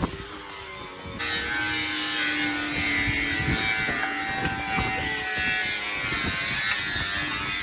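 Cordless Milwaukee angle grinder starting abruptly about a second in, then running at a steady pitch and level.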